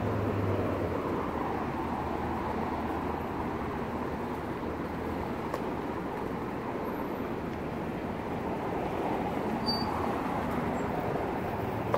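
Steady road traffic noise from cars passing on a busy street, with a low hum strongest in the first second.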